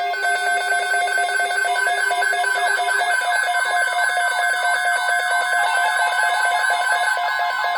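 Weather radio alert alarms sounding together: a rapid high beeping over steady tones, joined about three seconds in by a repeating warbling, siren-like sweep. This is the receivers alerting at the start of a new Tornado Watch broadcast.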